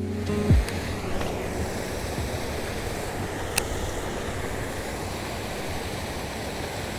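Wind rushing on the microphone outdoors, a steady noise. The last notes of background music end about half a second in, and there is a single click near the middle.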